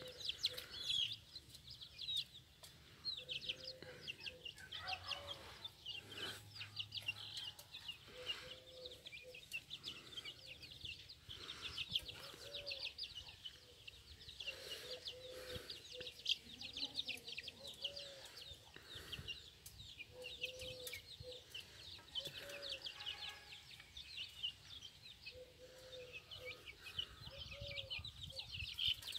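Young chicks peeping: a dense stream of short, high chirps, with softer, lower calls every second or two.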